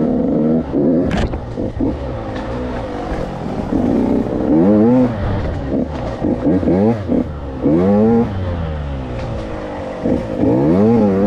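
KTM 85 two-stroke dirt bike engine revving up and down as the throttle is opened and closed, its pitch sweeping up and falling back several times. There is a sharp knock about a second in.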